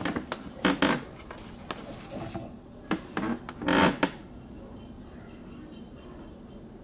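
Handling noise: a few short scraping, rubbing sounds, the loudest about four seconds in, as a soldering iron is brought to a wire and LED held in needle-nose pliers.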